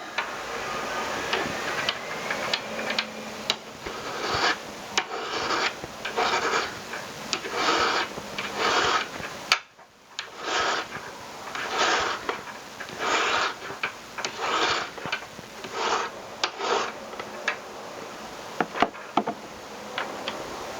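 Hand file rasping across silver ring stock in steady back-and-forth strokes, about one and a half strokes a second, with occasional sharp clicks and a brief pause about halfway through.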